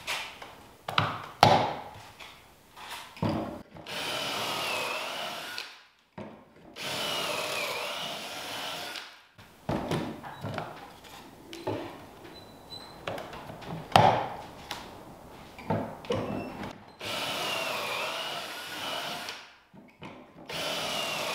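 Cordless drill boring pocket holes in plywood stretcher boards clamped in a pocket-hole jig. There are four runs of about two seconds each, the motor's whine dipping in pitch as the stepped bit bites. Between runs come sharp knocks and clatter as boards are set in and out of the jig.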